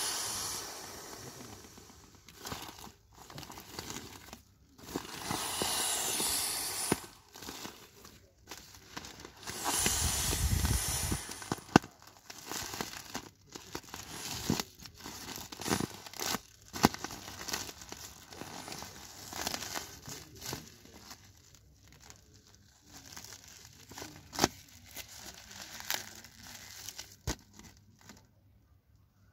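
Clear vinyl beach ball being squeezed flat by hand as it deflates: the thin plastic crinkles and crackles throughout, with two longer stretches of steady hiss, about five and ten seconds in, as air is pressed out.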